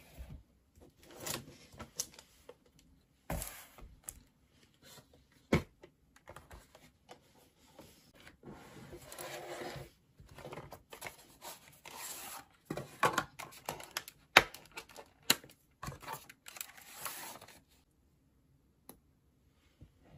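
A laptop, a tablet and a stylus box being set down and handled on a desk: scattered knocks and taps of the devices against the desk and each other, with rustling and scraping of packaging in between.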